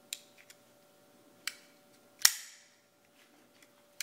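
Zero Tolerance 0350 folding knife being handled: a few light clicks, then one loud, sharp metallic snap with a short ringing tail as its assisted-opening blade snaps open and locks.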